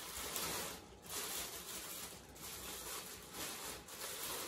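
Clear plastic bag wrapping rustling and crinkling as it is handled around a large bust, in uneven bursts.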